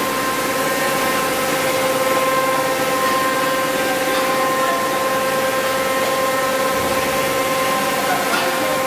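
Steady drone of a plastic pelletizing line's machinery running, a constant noise with steady whining tones held through it.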